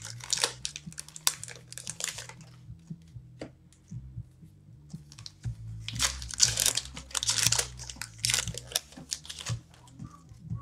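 Foil trading-card pack wrappers crinkling and tearing as packs are opened by hand, in bursts with a quieter stretch around the middle.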